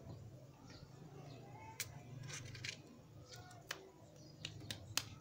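Faint scattered sharp clicks and ticks, about eight of them, the loudest near the end, over a low steady background hum.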